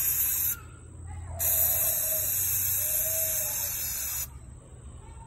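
Aerosol can of black spray paint hissing onto the water in a dipping tub, in two bursts. The first cuts off about half a second in; the second runs from about a second and a half to about four seconds. The spraying lays a paint film on the water for hydro dipping.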